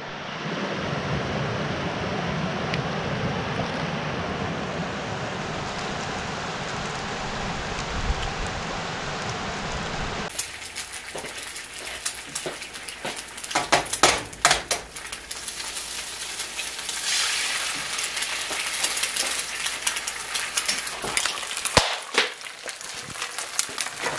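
For about ten seconds, a steady rush of creek water running over rocks. It then cuts to eggs frying and sizzling in a nonstick pan, with a few sharp clinks and taps against the pan.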